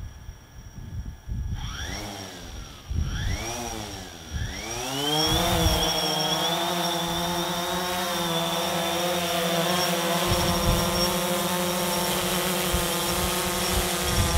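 DJI Phantom 3 Standard quadcopter's four motors and propellers whining as it flies low: the pitch swings up and down several times in the first few seconds as the motors speed up and slow down, then settles into a steady hovering whine.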